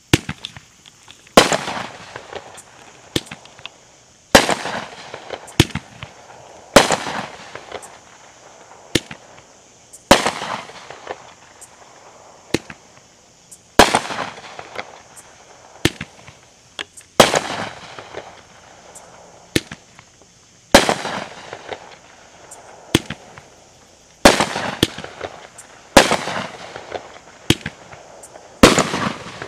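Firework shells fired in sequence from a rack of cardboard mortar tubes: sharp bangs about one a second, each trailing off briefly before the next.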